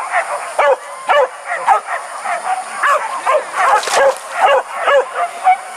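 Several hunting dogs yelping and baying together in rapid, overlapping high yelps, a few each second.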